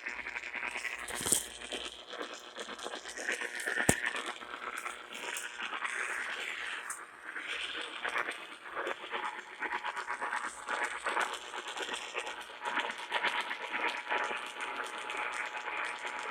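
Radio static between stations: a crackling hiss full of scattered clicks. A faint steady tone comes in about halfway.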